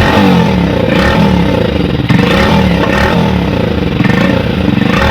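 Hero Splendor Plus BS6's single-cylinder four-stroke engine running, its note rising and falling about once a second, with an abnormal leaky exhaust sound from the silencer, which turns out to be rusted through and leaking.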